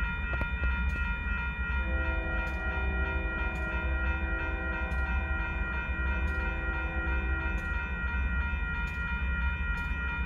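Double-stack freight train rolling slowly through a grade crossing: a steady low rumble with a wheel click about once a second, over the steady ringing of the crossing bell. From about two seconds in to nearly eight seconds, a long multi-note chord from a train horn sounds.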